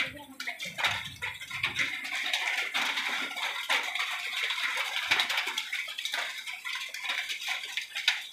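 Heavy rain falling, a dense hiss with a close patter of drops striking.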